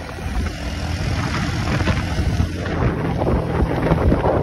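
Motorbike engine running while riding, with wind buffeting the microphone; the noise grows a little louder towards the end.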